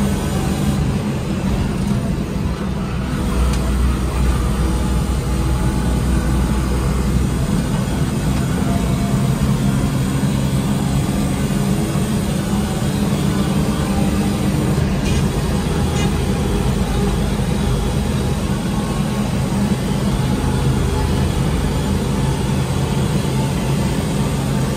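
BMW E36's engine running hard at lap speed, a loud steady drone heard from inside the stripped cabin, with road and wind noise under it.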